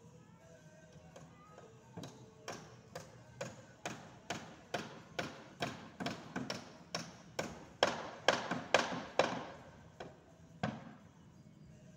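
A run of sharp taps or clicks, about two a second, getting louder toward the end, then stopping with one last tap.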